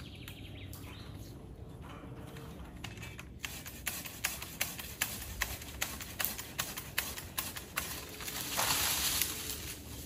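Hand saw cutting tree branches: a run of quick, even strokes, about three a second, then a louder rustle near the end.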